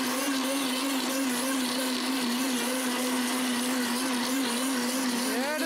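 Blendtec Designer 650 blender running at steady high speed on its ice cream program, its motor whine held under the noise of a thick ice-and-cream mixture being churned.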